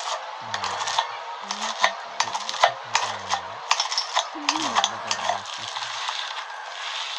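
Slime being stirred and squeezed: a continuous crackling, popping noise with many sharp clicks. A low voice runs underneath for most of it.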